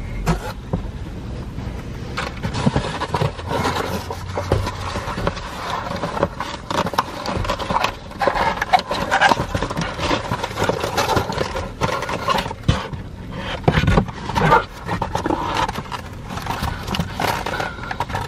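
Cardboard pizza box being handled and opened: steady scraping and rustling of cardboard with scattered knocks, and a few heavier thumps as it is moved and set down.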